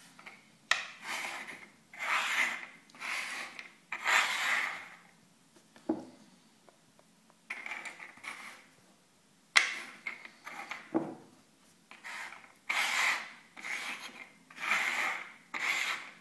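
Walnut-shell halves slid and shuffled across a wooden tabletop: a run of short scraping rubs, about one a second, with the odd sharp click as a shell is set down.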